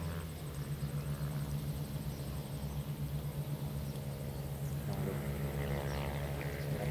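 A steady low hum runs throughout over faint outdoor background noise, with a faint higher pitched sound joining about five seconds in.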